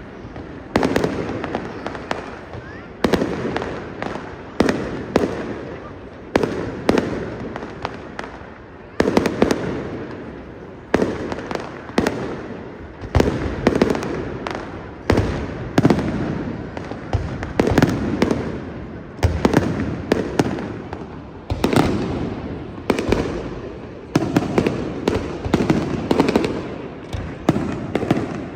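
Fireworks display: sharp bangs every second or two, each trailing off in a rumbling echo, some coming in quick clusters.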